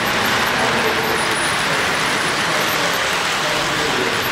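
O-scale three-rail model trains running past, a steady rattle of their wheels on the track.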